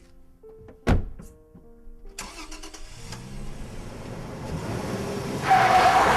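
A single sharp thump about a second in, then a car engine starts and runs, growing louder and revving near the end, over soft background music.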